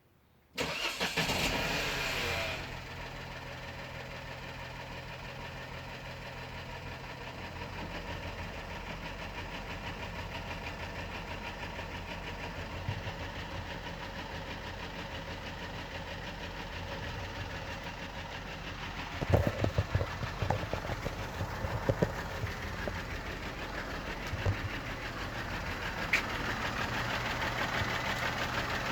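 Peugeot 208 engine starting about half a second in, then idling steadily. A few irregular knocks sound about two-thirds of the way through, and a hiss grows near the end. The owner likens the car's noise to a vacuum cleaner and reports that the engine lacked power and ran in jerks.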